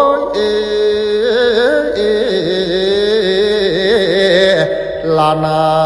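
Thai Buddhist devotional song: a single voice holding a wavering, gliding melody over sustained instrumental backing, cutting off suddenly at the end.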